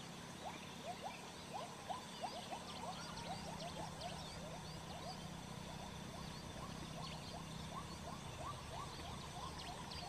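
A chorus of many short, rising chirping calls from small animals, several a second and thickest in the first few seconds, over a faint steady low hum that fades near the end.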